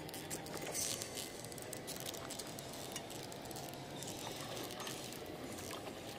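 Small clicks and rubbing from hands handling a baitcasting reel and rod, a few scattered ticks over a steady background hiss.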